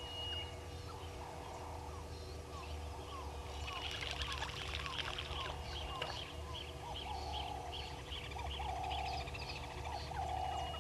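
Mixed chorus of wild birds and frogs: many short chirping calls, busiest around four to five seconds in, followed by a run of evenly spaced high notes and a few longer, lower calls repeated every second or so.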